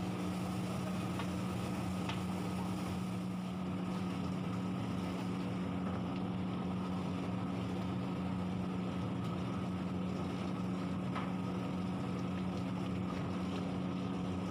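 A steady mechanical drone with an unchanging low hum, from kitchen machinery running, with a few faint clicks.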